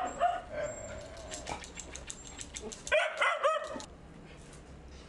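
Dogs barking and yelping, with a louder flurry of high barks about three seconds in over a rapid run of sharp clicks; it drops to quiet background after about four seconds.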